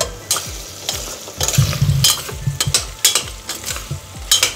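Goat trotters frying and sizzling in masala in a steel pressure cooker, stirred with a steel ladle that scrapes and clinks against the pot again and again.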